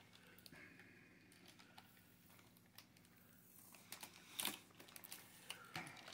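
Near silence with a few faint clicks and rustles of plastic packaging being handled, the clearest about four and a half seconds in and again near the end.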